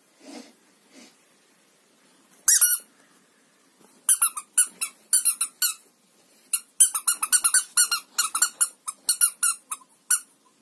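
Rubber squeaky toy mouse for cats squeezed by hand: one squeak, then a long run of quick squeaks, several a second, with short breaks.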